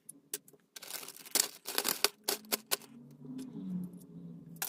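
Plastic courier mailer bag crinkling and rustling in a string of sharp bursts as it is handled and opened.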